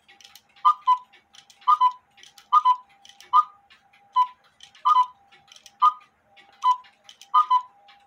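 Cuckoo clock bellows and whistle pipes sounding rapid two-note cuckoo calls, about one a second, as the movement is cycled by hand, with light mechanical clicking from the works. A few calls come out weaker or with one note barely sounding. This is the sign of the second bellow sometimes not dropping, because there is too much gap between the left bellow's wire and the right bellow.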